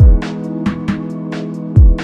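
Background music: held chords over a deep drum beat, with light ticks between the beats.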